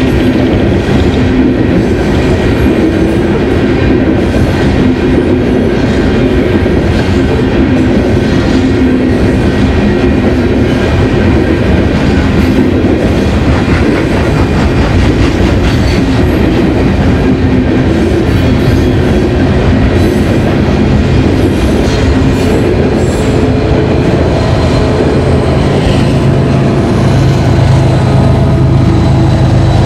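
Coal hopper cars of a Union Pacific freight train rolling past, wheels clacking over the rail joints, with a steady ringing that fits the crossing's warning bell. Near the end a diesel locomotive pushing at the rear of the train passes, adding a low engine drone that grows louder.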